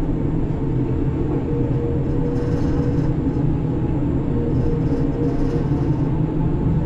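Heavy-duty grab crane's machinery running with a steady low rumble, heard from inside the operator's cabin, with a faint steady whine through the middle.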